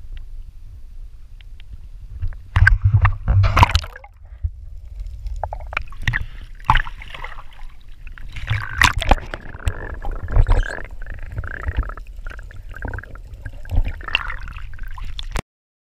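Sea water splashing and sloshing around a GoPro held at the waterline, with a low wind-and-wave rumble on the microphone. It comes in irregular bursts, loudest about three seconds in and again around nine to ten seconds, and cuts off suddenly near the end.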